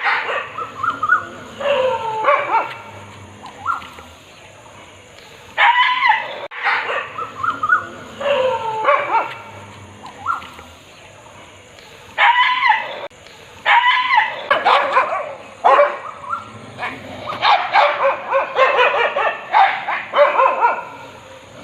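Dog barking in repeated bursts of a few barks at a time, with short pauses between, the barks thicker and closer together near the end.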